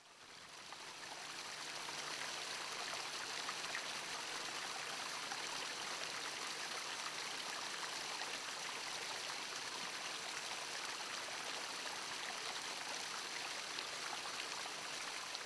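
A small mountain stream rushing and splashing over rocks in a steady wash of water sound, fading in over the first couple of seconds.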